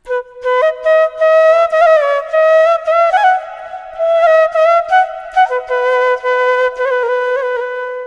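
Background music: a solo melody on one wind instrument, with quick ornamented notes that flick up and down between longer held tones.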